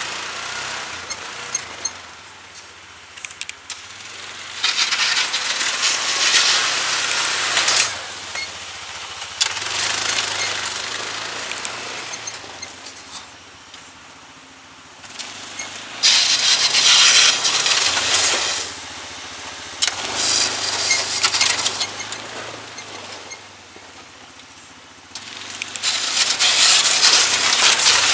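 Yamaha Rhino 660 UTV's single-cylinder engine running as it makes repeated passes pushing snow with a 48-inch front plow blade. It swells loud about five times as it comes close and drops off between passes.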